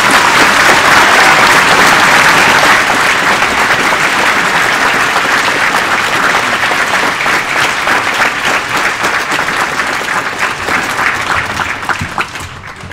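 Audience applauding in a large gymnasium: sustained clapping from a crowd, loudest over the first few seconds and slowly tapering off toward the end.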